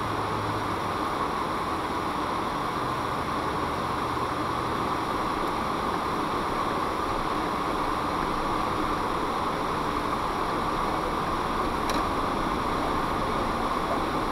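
Steady cabin noise inside a car, picked up by a windshield dash cam's built-in microphone: an even hiss with a faint low hum, and a light click about twelve seconds in.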